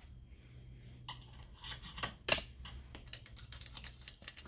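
Loose chainsaw chain being handled and laid onto a bar, its metal links clicking and rattling in light, scattered clicks, with a sharper click about two seconds in.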